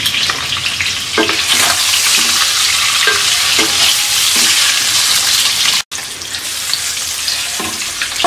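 Peeled hard-boiled eggs frying in hot oil in a non-stick karai: a steady sizzle, with a wooden spatula knocking and scraping on the pan now and then as the eggs are turned. The sound cuts out for an instant about six seconds in.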